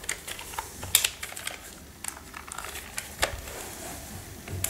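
Scattered plastic clicks and taps from handling a tape measure whose blade is stuck locked and will not pull out. A sharper click comes about a second in and another after about three seconds.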